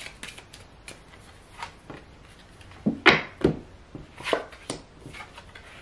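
Oracle cards being shuffled by hand in soft, scattered clicks, then a card drawn from the deck and laid on the cloth-covered table, with louder rustles about three seconds in and again a little after four seconds.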